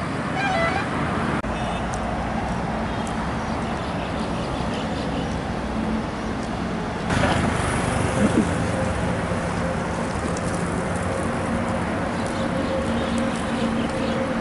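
Wind and road noise from riding a bicycle along a highway, an even rushing hiss. A steady motor-vehicle engine hum joins it about halfway through.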